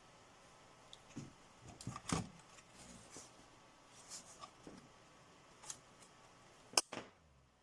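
Light handling sounds: scattered small clicks and rubbing, with one sharp click near the end, after which the background goes quieter.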